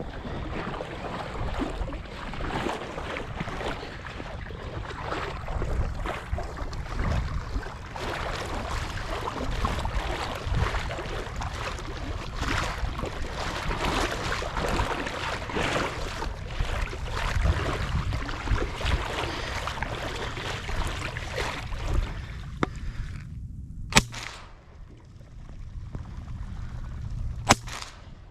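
Two sharp shotgun shots, about three and a half seconds apart, near the end, after a long stretch of dense rustling noise.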